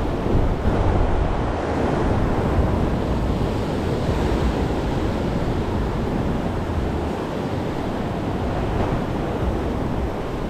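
Ocean surf surging and washing around rocks in a steady, continuous wash of water, with wind rumbling on the microphone.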